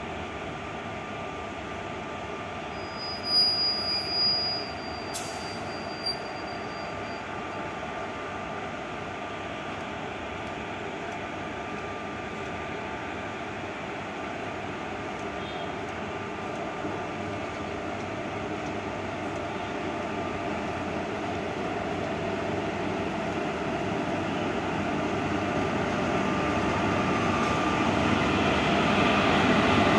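WAP-4 electric locomotive and its passenger coaches approaching at low speed: a steady rumble of wheels on rail with a faint hum, growing louder as the train nears. A brief high whistle-like tone sounds about three seconds in.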